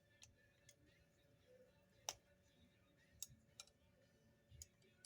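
Faint, scattered metallic clicks and taps, about six of them, the loudest about two seconds in: an Allen key being fitted to the cap screws on the back of a Hitachi framing nailer.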